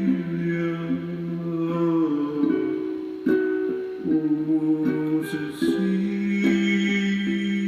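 Ukulele strummed as the accompaniment to a song, with chords changing every second or so.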